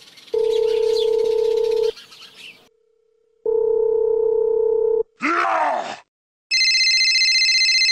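Telephone ringback tone: two long steady beeps about a second and a half each, with a pause between. Then a short squeaky glide, and near the end a telephone starts ringing.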